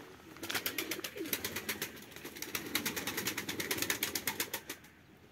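Domestic pigeons cooing low in a flock, over a rapid run of sharp clicks that starts about half a second in and stops near the end.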